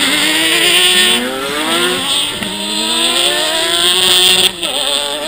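Ice-racing cars' engines revving hard, the pitch climbing and falling again and again with throttle and shifts. The engine sound drops away suddenly at about four and a half seconds.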